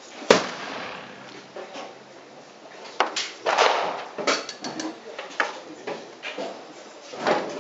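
A sharp knock about a third of a second in, then scattered clicks, knocks and clatter from tools and a model cannon being handled on a table.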